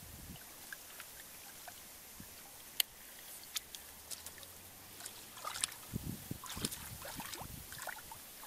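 People working barefoot in wet paddy mud among rice plants: scattered sharp clicks and light rustling, then a run of soft low thuds and squelches in the last couple of seconds as feet and hands move through the mud.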